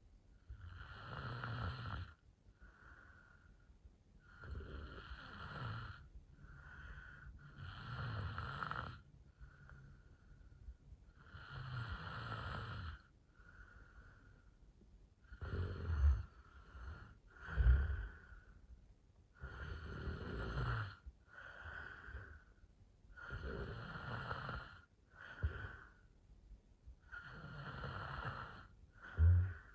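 A woman snoring in her sleep, breathing in an even rhythm of one snoring breath every three to four seconds, each followed by a weaker one. A few of the snores, around the middle and right at the end, are sharper and louder than the rest.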